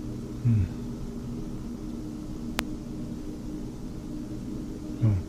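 Steady low droning hum with a faint hiss under it. It is broken twice, about half a second in and again near the end, by a short loud low thud that drops in pitch. A single sharp click comes midway.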